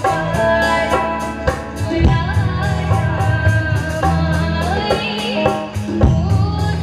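A woman singing a folk song live through a PA, accompanied by a two-headed barrel drum and keyboard with steady low notes and an even beat.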